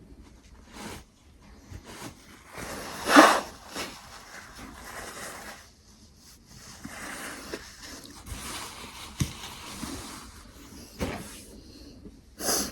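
A person with a runny nose blowing it and sniffing, with one loud nose blow about three seconds in and soft tissue rustling and small clicks around it.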